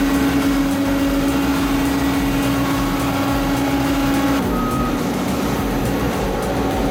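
Heavy construction machine's engine running steadily; its drone shifts in pitch about four seconds in.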